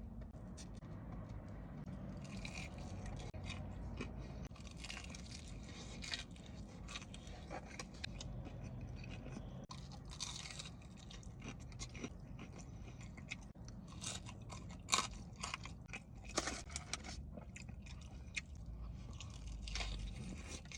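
Close-up crunching and chewing of crispy fried chicken wings, with irregular crunchy bites, the loudest about three-quarters of the way through.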